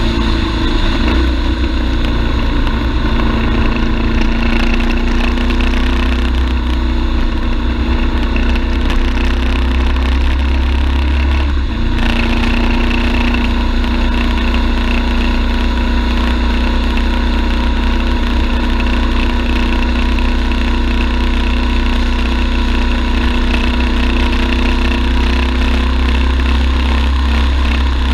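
BMW F850GS motorcycle's parallel-twin engine running steadily under way. There is a brief dip and change in the engine note about twelve seconds in.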